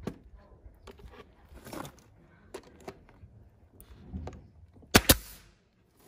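Light knocks of plywood pieces being handled and fitted together, then about five seconds in a pneumatic brad nailer fires into the plywood mould: two sharp cracks a split second apart with a short hiss of air.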